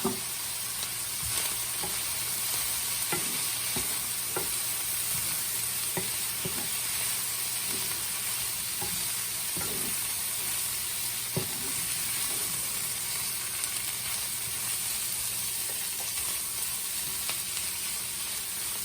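Creamy chicken and mushroom mixture sizzling steadily in a pan while it is stirred, the utensil knocking against the pan every second or two.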